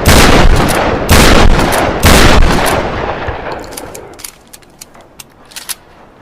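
Pump-action trench shotgun fired three times, about a second apart, each blast echoing. The last echo dies away over a couple of seconds, followed by a few faint sharp clicks.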